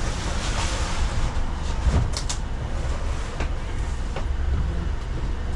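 A large cardboard box pushed and slid across a cargo van's plywood floor: scraping in the first second or so, then a few sharp knocks, over a steady low rumble.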